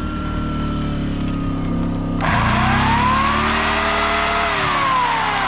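Small gas engine of a DR walk-behind trimmer mower running, then opened up about two seconds in: a loud whirring hiss comes in and the engine's whine climbs in pitch and then eases back down.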